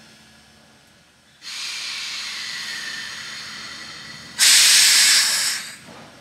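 Steam hissing from Conway Scenic's 0-6-0 steam locomotive 7470 as it stands. A steady hiss begins about a second and a half in, with a faint falling tone in it. It is followed about three seconds later by a louder, harsher burst of steam that lasts about a second and then dies away.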